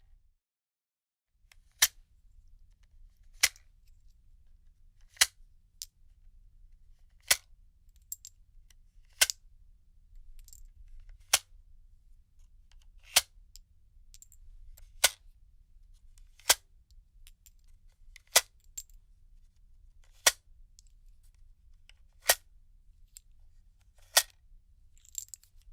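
Firearm reloading sounds: a series of sharp metallic clicks and clacks of a gun's action, one roughly every two seconds, with a few fainter clicks in between.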